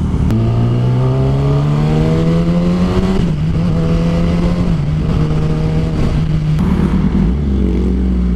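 2016 Kawasaki ZX-10R's inline-four engine pulling away and accelerating, its pitch rising steadily for about three seconds, then dropping suddenly at an upshift and running fairly steady, with another shift in pitch about two-thirds of the way through.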